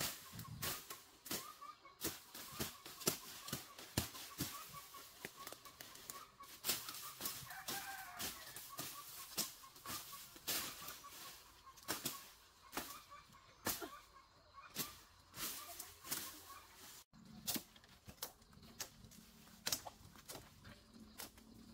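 Irregular sharp chopping strikes, about one or two a second, of a blade cutting into the base of a small tree trunk. Near the end, the felled trunk is handled in the undergrowth with further knocks.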